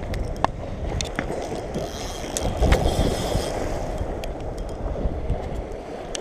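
Steady rubbing and scraping of a jacket sleeve brushing over a chest-mounted camera as a spinning reel is cranked to reel in a hooked catfish, with scattered light clicks. Waves wash against the concrete shore underneath.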